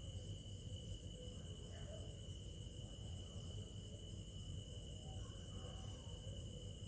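Quiet room tone: a low steady hum with a constant thin high-pitched whine and no distinct events.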